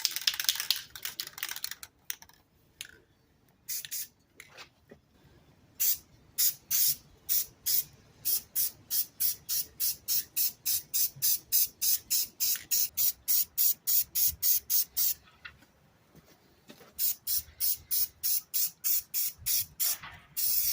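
Aerosol can of Rust-Oleum hammered grey spray paint sprayed in short hissing bursts, about two to three a second, with a pause about two-thirds of the way through.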